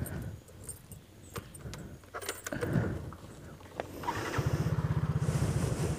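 Clicks and light rattling as a motor scooter is handled, then about four seconds in its small engine starts and runs steadily with an even, rapid pulse.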